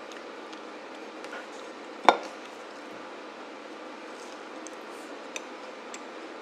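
A sharp clack about two seconds in as a piece of broken chocolate cookie is set down on a plate, with a few small ticks later, over a faint steady hiss.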